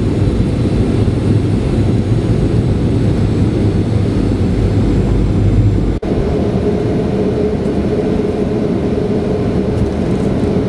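Steady low rumble of jet airliner noise. About six seconds in it breaks off abruptly and gives way to a similar steady hum carrying a faint held tone.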